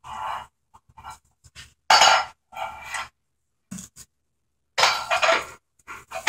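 Intermittent clattering and clinking of a child's toys being played with, in a run of separate bursts about half a second long.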